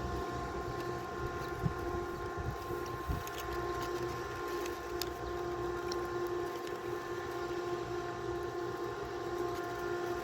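A steady, pitched mechanical hum, with a few soft knocks in the first three seconds.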